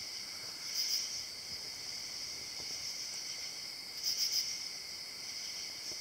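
A chorus of insects trilling steadily, with a short burst of pulsed chirps about a second in and another, of several pulses, around four seconds in.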